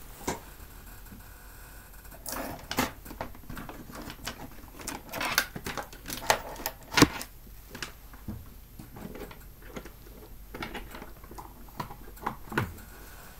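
Irregular clicks, taps and light knocks of hands working at a desk, scattered with short gaps, the sharpest about halfway through.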